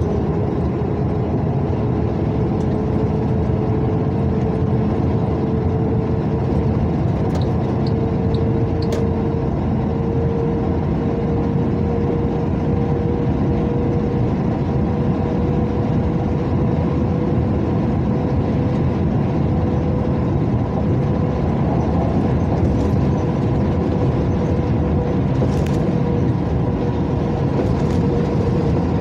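Steady road noise from a car driving along a highway, heard from inside: a constant tyre and engine rumble with a steady hum.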